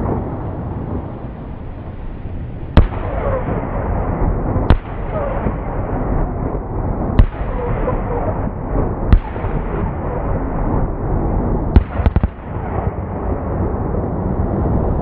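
Fireworks going off: sharp bangs about two seconds apart, then a quick cluster of two or three bangs about twelve seconds in, over a continuous rushing noise.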